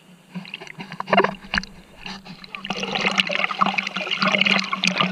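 Sea water splashing and sloshing close by, with scattered knocks in the first half and a dense rush of splashing from about three seconds in. A steady low hum runs underneath.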